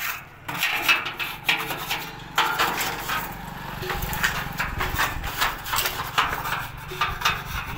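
Repeated hand-sanding strokes rubbing on the steel side panels of a truck body as it is prepared for paint. A low steady engine hum runs underneath from about two seconds in until near the end.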